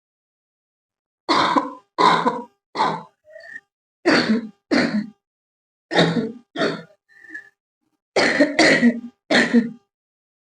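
A young woman coughing on purpose: about ten short coughs in clusters of two or three, with pauses between. Her throat is already slightly hoarse.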